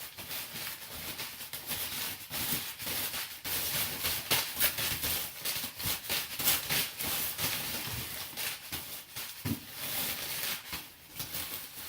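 Newspaper packing paper rustling and crackling as it is handled and pulled out of a box, a dense run of sharp crinkles, loudest around the middle.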